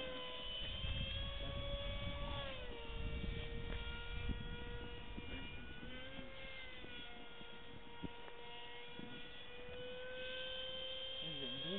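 Electric motor and propeller of a radio-controlled model airplane whining in flight. Its pitch dips twice in the first three seconds and climbs slowly again from about six seconds in, over a low rumble.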